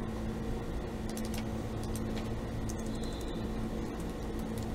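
Faint clicks of a laptop keyboard as a name is typed, a few of them about a second in, over a steady low room hum.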